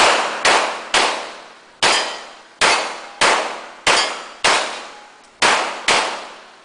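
Glock pistol firing ten shots in quick succession, spaced about half a second to a second apart, each shot trailing off in a ringing echo.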